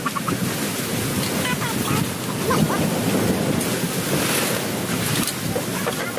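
Steady rushing wind and surf, with wind buffeting the microphone and a few faint, short high chirps over it.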